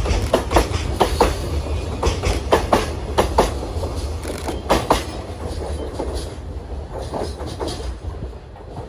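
Container freight train's wagons rolling past, wheels clacking over the rail joints over a low rumble; the clatter thins and fades in the second half as the last wagon goes by and draws away.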